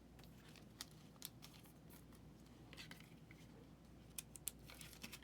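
Near silence with a few faint sharp clicks and a soft rustle: trading cards being handled.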